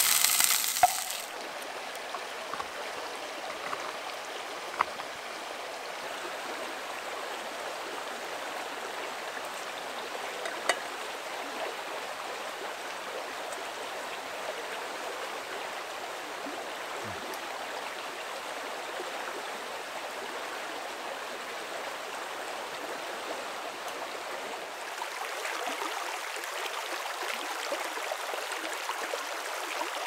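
Fish sizzles in a frying pan over a campfire for about the first second. After that there is the steady rush of a shallow river running over stones, broken twice by a light click.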